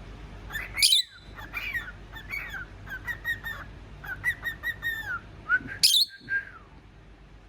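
Pet cockatiel whistling and chirping: a run of short whistled notes and pitch glides, broken by two louder, sharp calls about a second in and again near six seconds.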